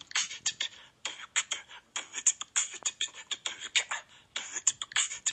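Google Assistant's beatbox clip playing through a smartphone speaker: a fast run of percussive mouth sounds in a quick rhythm, thin and with almost no bass.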